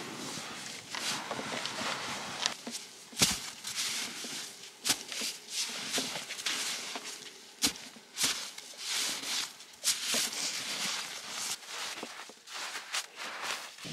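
Irregular crunching and scraping in snow, broken by several sharp knocks at uneven intervals.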